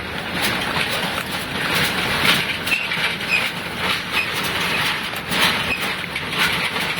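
Car tyres rolling slowly over hard, icy packed snow: a steady rumble broken by many short crunches and crackles, several a second.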